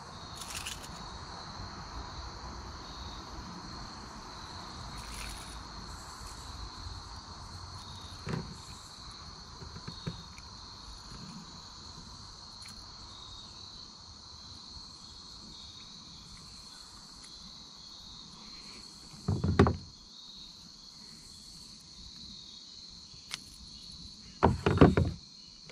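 Insects chirring steadily in a high, even band. Over it come a few small clicks and two loud thumps, one about two-thirds of the way in and one near the end.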